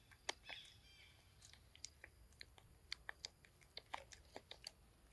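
A macaque chewing food: a run of faint, irregular crisp clicks and crunches.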